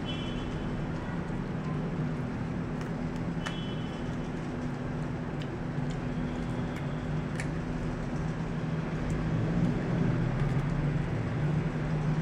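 A dog gnawing a raw carrot: a few sharp crunching clicks spaced a second or two apart, over a steady low hum.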